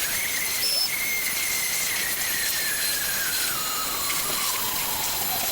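Steady hiss with a faint whine that slowly falls in pitch.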